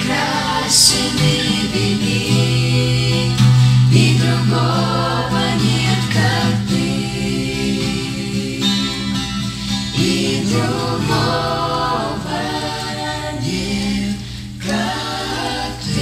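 Several voices singing a slow Christian worship song together in harmony, with long held notes.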